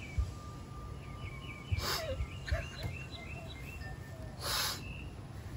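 Small birds chirping in quick repeated series of short high notes, over the sniffs and shaky breaths of a person crying, with two louder breathy sniffs about two seconds in and near the end.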